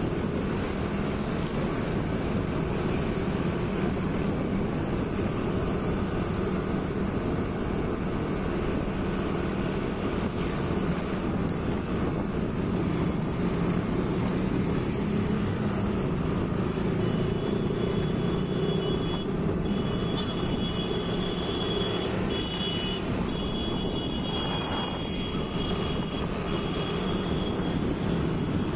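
Steady road traffic noise heard from a vehicle moving among motorcycles on a town street: a constant engine hum under a rushing noise. In the second half a few thin high tones come and go for several seconds.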